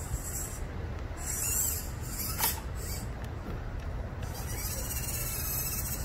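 Servo motors of a wireless pan-and-tilt camera mount whirring in spurts as it pans, a high hissy whir about a second in and again near the end, with one sharp click in between, over a steady low rumble.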